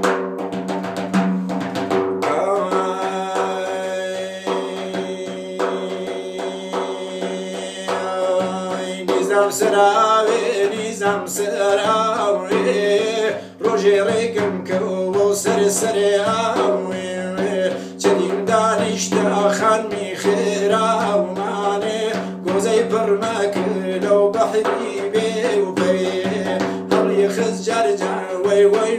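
Hand frame drum struck in a steady rhythm over a sustained droning instrumental accompaniment, with a moving melody joining about nine seconds in: an instrumental passage between sung verses.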